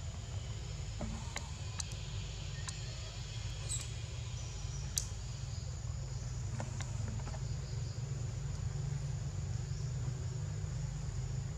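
Forest ambience: a steady high insect drone over a low steady rumble, with a few short, sharp clicks scattered through the first half.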